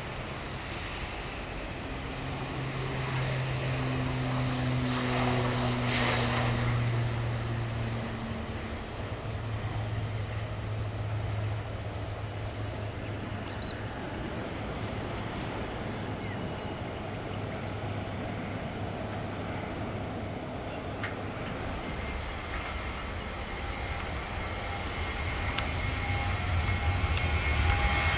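ATR 72-600 turboprop taking off, its propellers making a steady low drone that swells and drops slightly in pitch as it passes. Near the end a jet's engine noise comes in, a rising rumble with a steady whine, getting louder.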